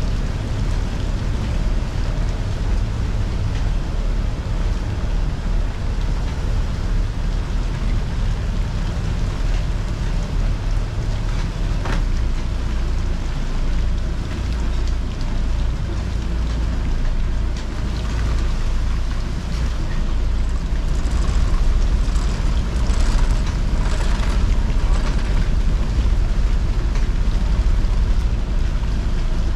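Catamaran's inboard engine running steadily at low revs, under a hissing wash of squall rain and wind that grows stronger in the second half. There is a single sharp click about twelve seconds in.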